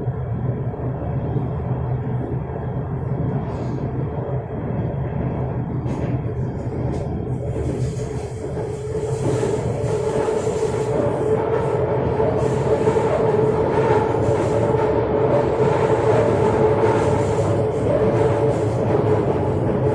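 Orange Line metro train running between stations, heard from inside the carriage: a steady rumble of wheels and running gear. About nine seconds in it grows louder, with more hiss and a steady whine joining, as the train gathers speed.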